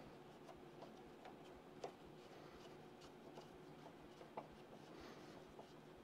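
Near silence: faint room tone with a low steady hum and a few soft, scattered clicks, as of small safe-lock parts being handled and pressed into place.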